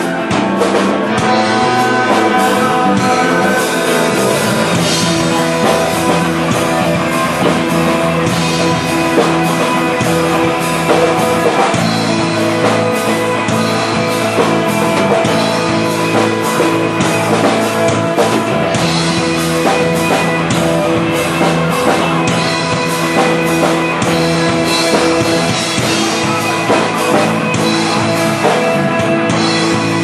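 Live rock band playing: electric guitar, bass guitar and drum kit, loud and continuous.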